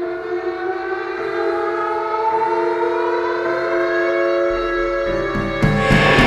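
Live psychedelic rock band holding a sustained drone of several notes, with one pitch slowly sliding upward as the sound builds in volume. A low bass note enters about four and a half seconds in, and the full band with drums crashes in near the end.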